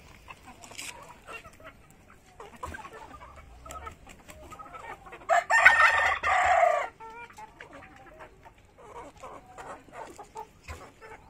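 A flock of chickens clucking softly as they feed, with a rooster crowing loudly once for about a second and a half in the middle.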